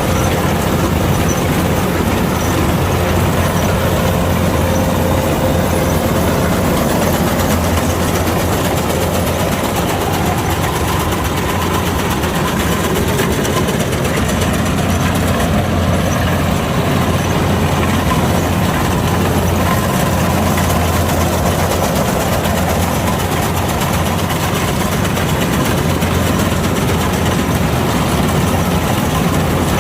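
Kubota DC-105X combine harvester running steadily while harvesting rice: a diesel engine drone with the even rush of the threshing machinery.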